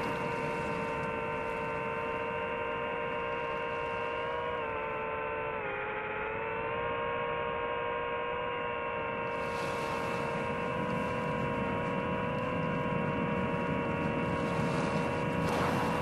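Drone motors and propellers whining steadily in flight, the pitch dipping briefly about six seconds in as the motors slow.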